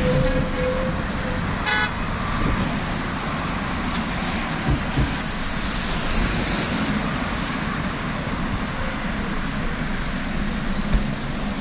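Highway traffic noise from passing cars, steady throughout, with a short car horn toot near the start and another brief horn blast about two seconds in. Two low thumps come about five seconds in.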